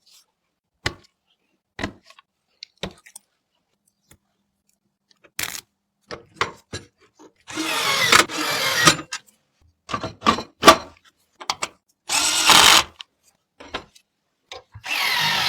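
Small electric screwdriver whirring in three bursts of about a second each, driving screws during a PC build, with light clicks and taps of parts being handled in between.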